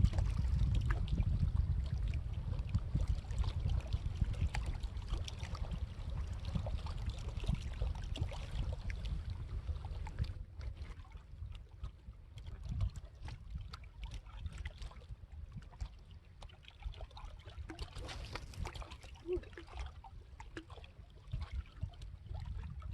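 Outdoor lake water sounds: a low rumble that slowly fades, with small splashes and scattered light clicks.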